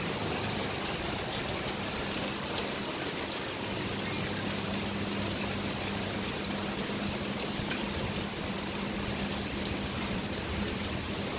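Steady rain falling, an even hiss with scattered drops ticking close by.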